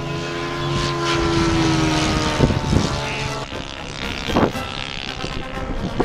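Large-scale radio-controlled model airplane's engine and propeller droning overhead, the pitch dropping slightly as it passes, then fading about three and a half seconds in. A couple of brief thumps follow.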